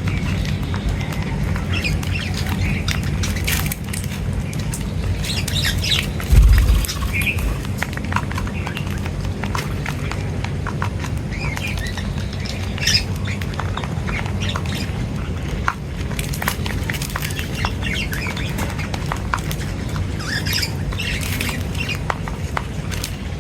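Birds chirping and squawking in short, scattered calls, with sharp ticks among them, over a steady low rumble. A brief low thump sounds about six seconds in.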